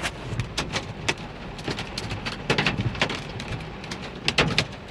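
Large hailstones pelting a vehicle's roof and glass, heard from inside the cab as a dense, irregular patter of sharp knocks over the hiss of heavy rain.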